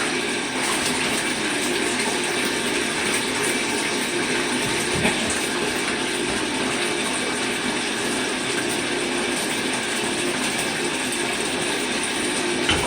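Water running steadily from a tap into a tub.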